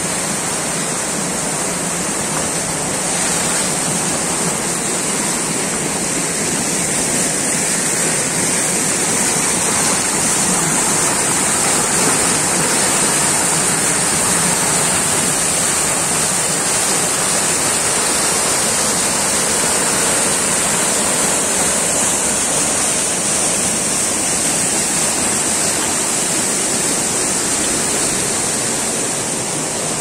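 Muddy, fast-flowing Neelum River rushing over rocks in white-water rapids: a loud, steady rush of water.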